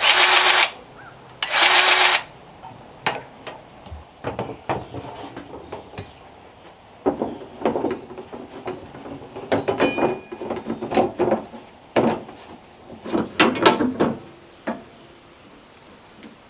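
Sawmill being greased with a hand grease gun: two short squeaks in the first couple of seconds, then irregular metallic clicks and knocks as the gun and fittings are worked.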